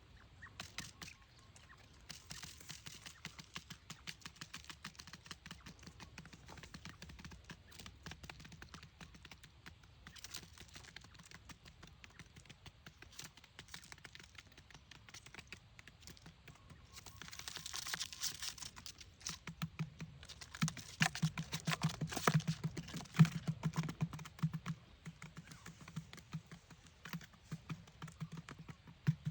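Rapid, faint light tapping and clicking, like small taps on a hard surface; it gets louder and busier in the last third, after a brief hiss a little over halfway through.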